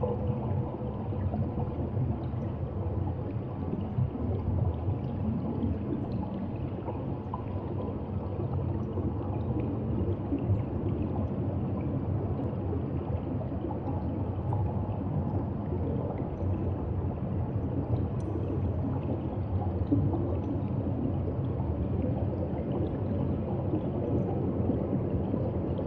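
Steady underwater ambient noise picked up by a submerged camera: a low, even wash of water sound with a faint hum and scattered faint clicks.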